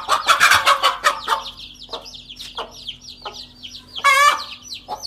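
Chicks peeping rapidly and without pause while a hen gives loud, harsh alarm squawks, once about a second in and again near the end. The hen is alarmed by a cobra threatening her brood.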